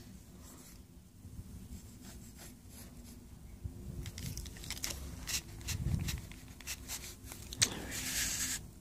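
Loose paper sheets rustling and crinkling as they are handled, with scattered crackles from about four seconds in, a sharp click near the end and a short rustle right after it.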